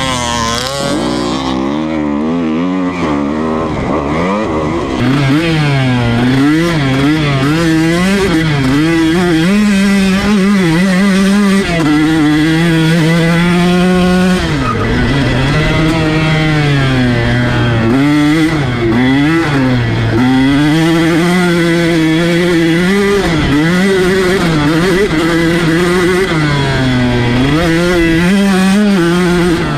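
KTM 150 SX two-stroke dirt bike engine revving up and down over and over as the throttle is rolled on and off through the gears, heard from the rider's seat. It gets louder about five seconds in, drops low around the middle, then climbs again.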